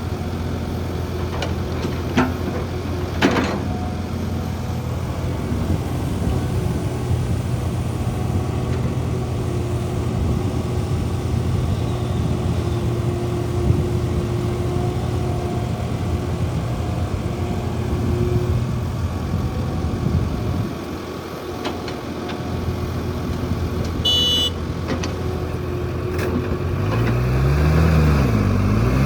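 Heavy diesel construction machinery running: a steady low engine drone that dips briefly about two-thirds through, then revs up and down near the end. A few faint clicks and a short high-pitched tone sound over it.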